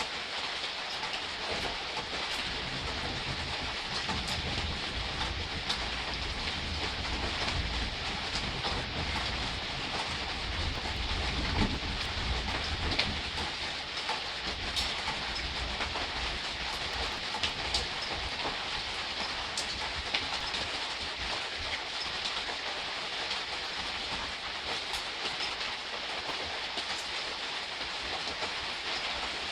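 Gentle rain falling steadily, a soft hiss with scattered ticks of single drops and a low rumble underneath.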